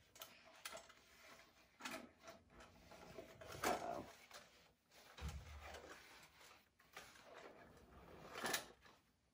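Faint rustling and scraping of an old cardboard toy-train box being handled and its end flaps pried open, with a few soft knocks and one low thud about five seconds in.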